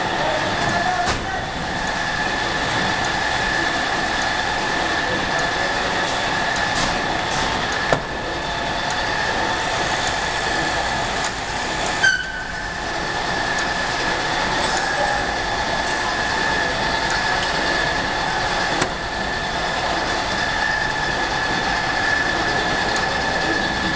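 Pitroda Machinery portable stacker belt conveyor running steadily under load, its drive giving a constant high whine. A few short knocks come through, at about 8, 12 and 19 seconds in.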